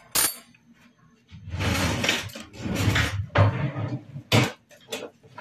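Kitchen handling sounds: a couple of sharp clicks at the start, then a few seconds of loud, uneven rustling and shuffling noise, and one more sharp knock near the end.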